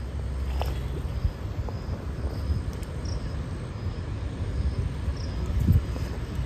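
Outdoor ambience: a steady low rumble with faint, evenly repeated high insect chirps, about two a second, and a few soft knocks.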